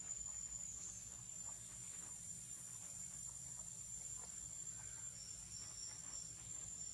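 Steady high-pitched single-tone insect drone in tropical forest, with a short run of about five separate chirps at a slightly lower pitch about five seconds in. A low rumble runs underneath.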